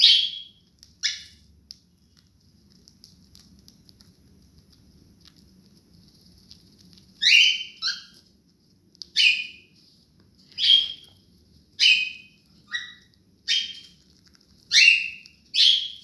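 Cockatiels calling: loud, sharp chirps, each falling in pitch. Two come at the start, then after a few seconds of faint soft chatter a run of about nine more follows, roughly one a second.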